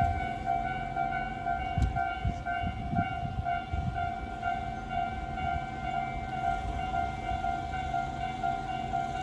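Electronic warning bell of a Tobu Railway level crossing, sounding a ding about twice a second in the slightly unusual variant of Tobu's standard crossing tone, over a low rumble.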